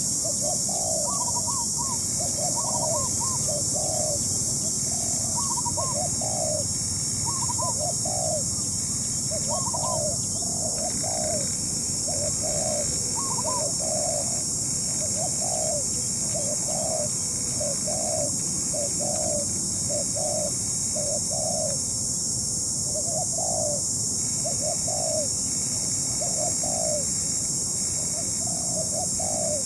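Spotted dove cooing over and over, short soft phrases following one another with barely a pause, with higher notes mixed in over the first half. A steady high hiss runs behind.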